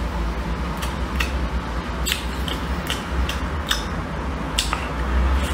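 Close-up chewing of stir-fried dried tofu strips, heard as a dozen or so scattered wet clicks and smacks, with chopsticks working the pan, over a steady low hum.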